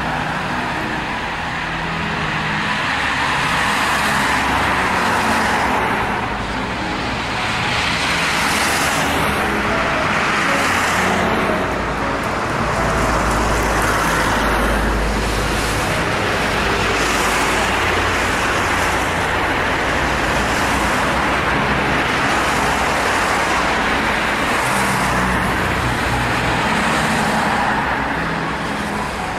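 Road traffic on a multi-lane city street: cars passing one after another, a steady rush of tyres and engines that swells as each goes by, with a deeper low rumble about halfway through.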